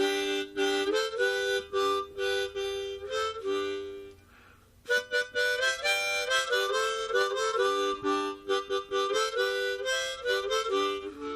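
Harmonica playing a rhythmic tune in short, chopped chords, with a brief break a little past four seconds in.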